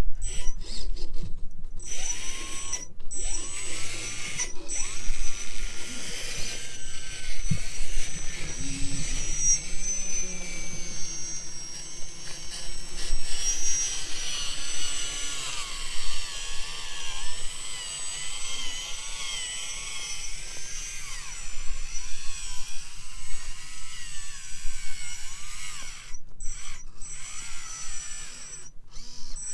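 Electric motor and gearbox of an RC scale trial truck whining as it crawls over the course, the pitch rising and falling with the throttle, with a few brief stops.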